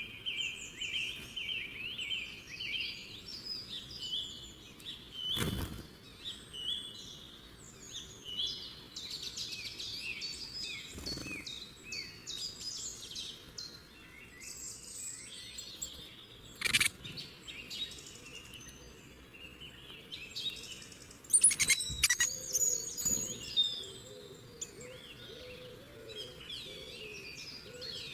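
Several birds chirping and singing in quick short phrases, in a nature recording, with a few sharp clicks or knocks scattered through it, the loudest about 21 seconds in.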